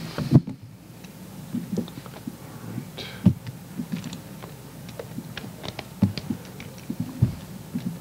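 Irregular light clicks and a few louder soft knocks from things handled on a table, over a steady room hum.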